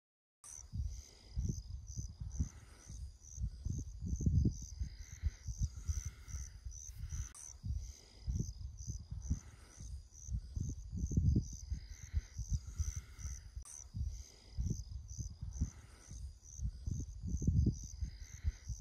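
Insects chirping in a steady, high-pitched, evenly pulsing trill, with irregular gusts of wind rumbling on the microphone.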